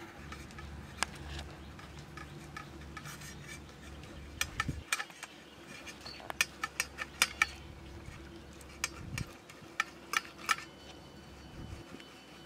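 A peeled ripe mango being grated on a flat stainless-steel hand grater held in a steel bowl: soft rasping of the fruit, with sharp metallic clicks and taps of the grater against the bowl, thickest in quick clusters through the middle.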